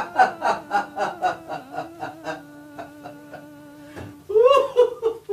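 A man's voice in a quick run of short breathy bursts that slow and fade over about two and a half seconds, over a steady held note of background music. A louder drawn-out vocal outburst comes about four and a half seconds in.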